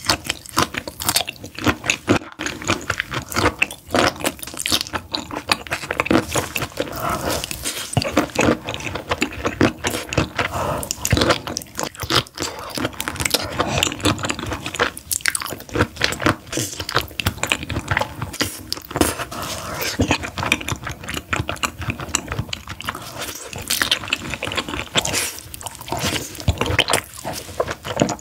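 A person biting and chewing pieces of spicy red-sauced food, heard close up: many sharp, irregular clicks of biting and chewing follow one another.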